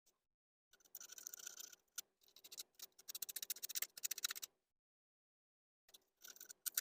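Sandpaper being worked between the ignition contact points of a 1977 Suzuki GS550 to clean their badly fouled faces. It comes in three short bursts of quick, scratchy strokes: one about a second in, a longer one from two to four and a half seconds, and one near the end.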